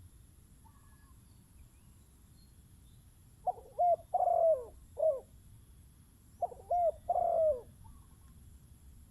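Spotted dove cooing: two short phrases of low, hooting coos, a few notes each, a couple of seconds apart.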